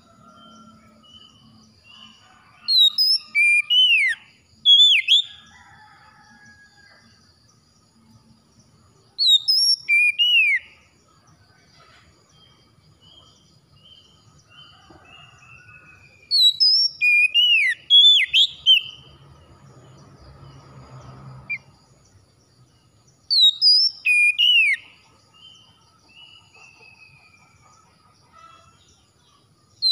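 Oriental magpie-robin singing: loud phrases of sweeping, swooping whistled notes, five bursts a few seconds apart, with softer short repeated chirps in the gaps.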